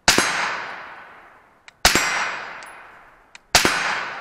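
Three shots from a suppressed AR-15 rifle, about 1.7 seconds apart, each a sharp crack followed by a steel plate target ringing and fading away.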